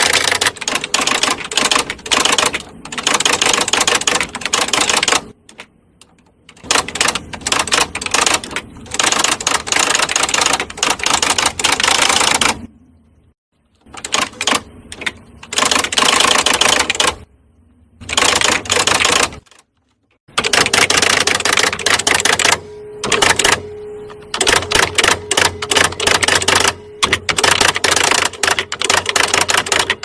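Electric typewriter typing in fast runs of keystrikes, broken by several pauses of about a second, with a steady low hum underneath.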